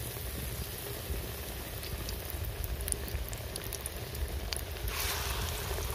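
Besan-battered potato chops deep-frying in hot oil in a wok: a steady bubbling sizzle with scattered small crackles, briefly louder about five seconds in.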